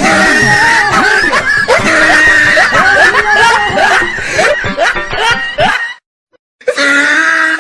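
Snickering laughter over background music. Everything cuts out abruptly for just under a second near the end, then the sound comes back.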